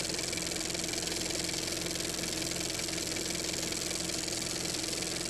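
An engine idling steadily, an even hum that neither revs nor changes.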